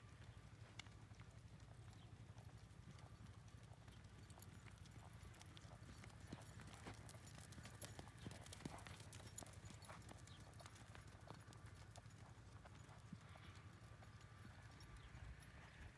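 Faint hoofbeats of a horse moving over a sand arena, clearest around the middle when it passes close by.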